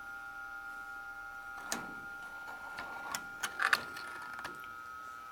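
Märklin model train with ESU Silberling coaches running past: a steady high electric whine, with a cluster of irregular sharp clicks and clacks from about a second and a half to four and a half seconds in as the wheels run over the track.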